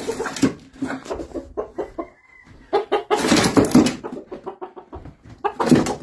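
Gamefowl stag and pullet clucking as they are put together on a box, with a louder drawn-out call about three seconds in and another near the end.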